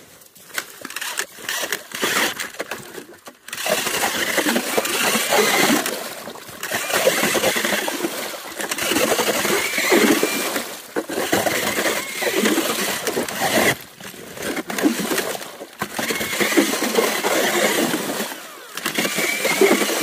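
Ice auger boring through ice in about eight noisy bursts of two to three seconds, with short pauses between them, cutting out the ice partitions between neighbouring holes to widen the hole.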